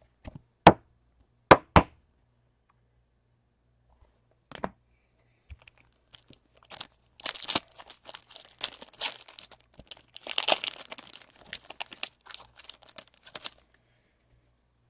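A few sharp clicks in the first two seconds, then a Topps Chrome trading-card pack's wrapper being torn open and crinkled for about seven seconds.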